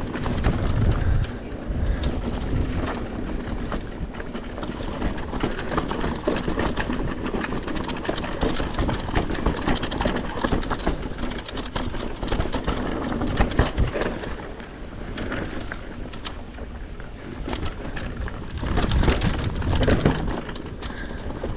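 Mountain bike rolling down a rough rocky and gravel trail: tyres crunching over loose stone, with a steady run of clicks and rattles from the bike jolting over rocks and a low rumble that swells in places.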